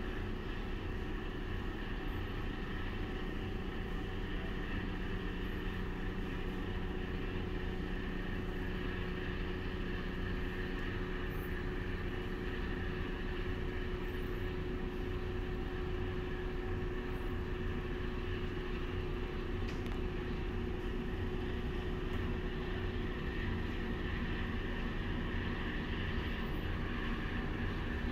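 Steady drone of a ship's engines and machinery heard on deck, a constant low rumble with a steady hum that doesn't change.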